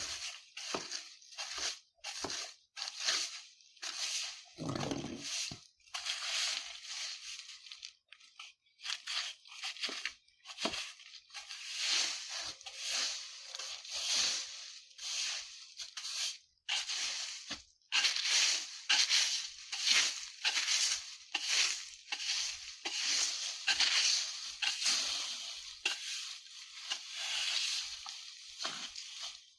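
Broom sweeping dry fallen leaves on the ground: repeated swishing strokes with rustling and crunching of the leaves, closer together in the second half.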